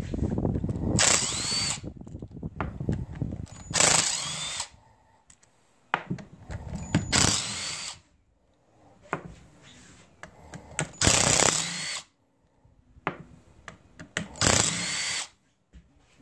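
Cordless drill backing screws out of a steering rack-and-pinion gearbox cover. The motor runs in five short bursts of about a second, each with a rising whine, with small clicks and knocks of handling between them.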